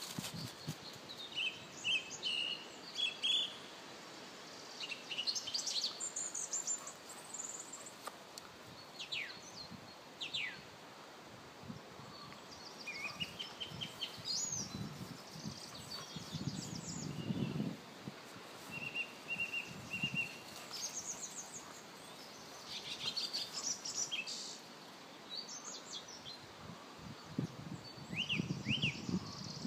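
Wild birds singing: scattered chirps, short trills and quick whistled notes, some rising and falling, over a faint outdoor hiss. A couple of brief low rumbles come through, one mid-way and one near the end.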